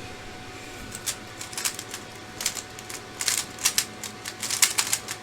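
A 3x3 Rubik's cube being turned at speed during a speedsolve: rapid, irregular clicking and clacking of the layers, coming in quick clusters.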